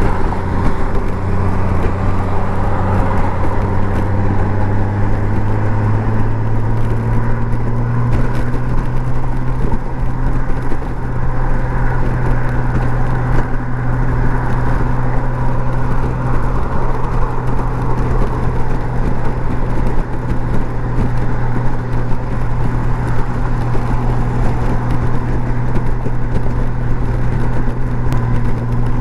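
Honda Gold Wing flat-six engine running steadily at highway speed, a low drone that rises slightly in pitch about six seconds in, over a haze of wind and road noise.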